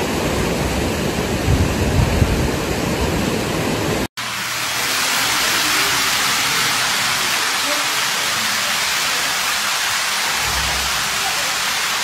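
Steady hiss of heavy rain and rushing water, deeper-sounding in the first few seconds; a sudden cut about four seconds in, after which the downpour hiss is higher and even.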